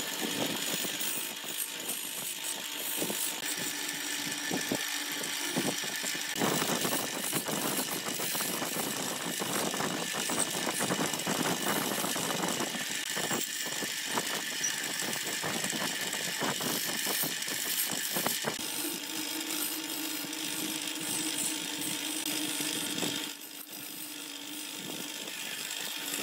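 Wood lathe running steadily with its motor humming, while a turning tool works the spinning wooden vase blank, giving a rough scraping chatter through the middle stretch. The sound drops in level near the end.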